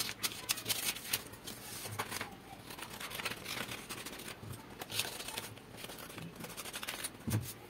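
Scissors cutting notebook paper: a run of quiet, irregular snips.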